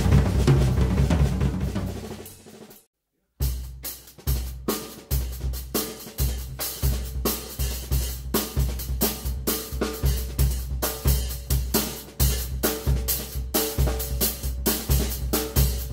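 Ludwig drum kit played in an improvised solo: dense drumming that fades out, a short gap of silence about three seconds in, then a steady run of bass drum strokes under snare, tom and cymbal hits.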